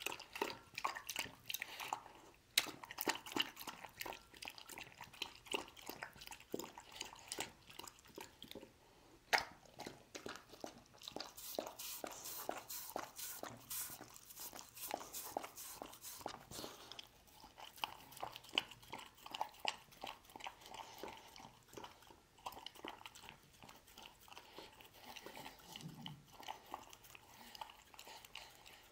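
A dog eating chicken soup from a ceramic bowl: a quick, continuous run of wet lapping, slurping and chewing smacks, several a second, with a few sharper clicks.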